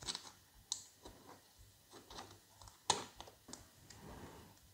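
Faint, scattered clicks and taps of hands turning a metal camera baseplate's mounting screw into the camera's tripod socket and handling the camera body, with one sharper click about three seconds in.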